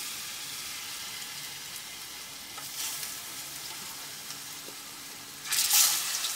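Plantain pieces sizzling steadily in hot oil in a frying pan. The sizzling surges louder about three seconds in and again, loudest, near the end, as more pieces are dropped into the oil.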